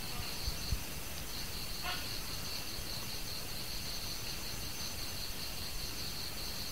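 An insect chirping in a steady, high, rapidly pulsing trill that breaks off briefly about a second in, over a steady background hiss. A couple of soft low knocks come in the first second.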